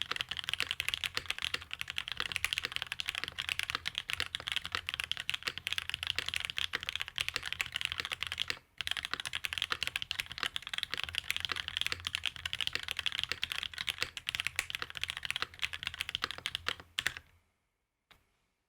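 Fast continuous typing on a custom Ayleen TKL mechanical keyboard with Cherry Nixie switches in an aluminium plate and GMK Astral Light keycaps. There is a brief pause about halfway through, and the typing stops near the end.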